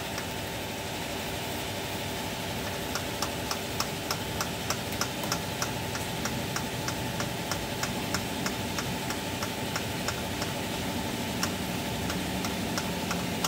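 Diesel engine's hand fuel priming pump being worked by hand, its plunger clicking in a quick regular rhythm, a few strokes a second, over a steady background hum. The pumping bleeds air out of the fuel line after a fuel filter change, the air that had made the engine stall.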